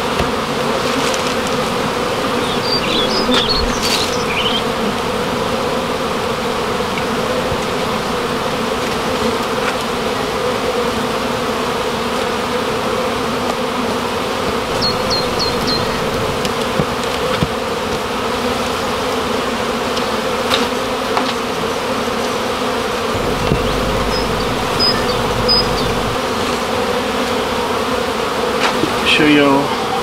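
Honey bees buzzing in a steady hum around their opened colony in a wall void, with a few short high chirps now and then.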